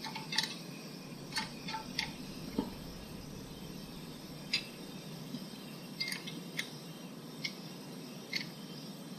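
Scattered light metallic clicks of a hand wrench working the bolt of a valve spring compressor on a 4.8 L Chevy V8's cylinder head, backing it off so the new valve spring rises and the keepers seat. The clicks are irregularly spaced, about ten in all, over a steady low hum.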